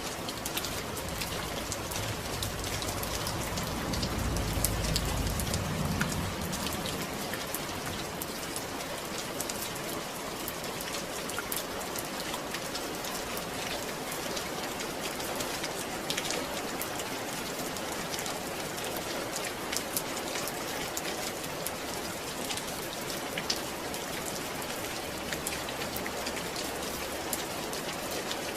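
Steady rain with scattered individual drops tapping, and a brief low rumble swelling about four seconds in.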